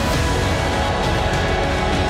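Soundtrack music with sustained chords, steady in level.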